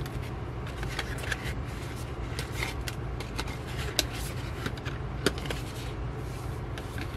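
Stiff paper and card being handled: a folding cardboard card holder opened and flipped, cards sliding against each other and tapping on a tabletop, with sharp taps about four and five seconds in. A steady low hum runs underneath.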